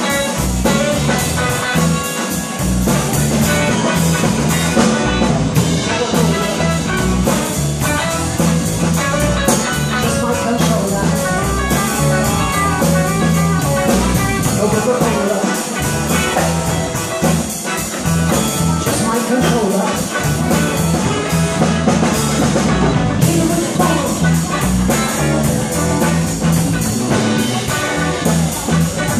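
Live band playing with electric guitar, electric bass and drum kit.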